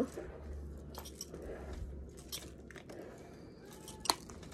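Faint scratchy rustling of a hairbrush being drawn through hair, with a sharp click about four seconds in. A low hum underneath stops a little before halfway.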